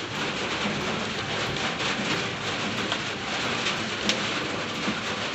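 Steady, even rushing noise, much like heavy rain, with a few faint knocks.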